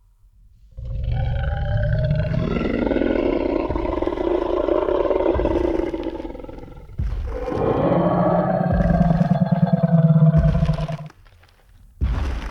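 Tyrannosaurus rex roar sound effect: two long, loud roars one after the other, then a short heavy thud near the end.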